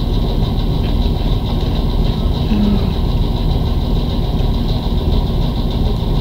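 Steady, loud low rumbling background noise with a faint high-pitched whine that runs on unchanged.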